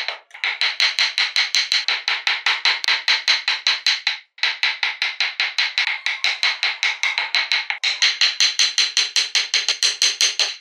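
Quick, evenly spaced sharp knocks, about five a second, from a wood-carving gouge being tapped through the wood as it cuts shavings, broken twice by short pauses.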